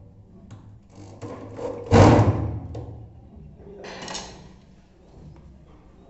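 Clicks and knocks of a metal door lock and its handle being handled and fitted against a wooden door, with a loud knock about two seconds in and a smaller one about four seconds in.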